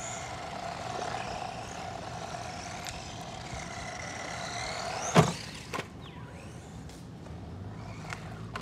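Small RC monster truck's 390 brushed electric motor and drivetrain whining as it drives on asphalt, the pitch gliding up and down with the throttle. A single sharp knock about five seconds in, followed by a few lighter clicks.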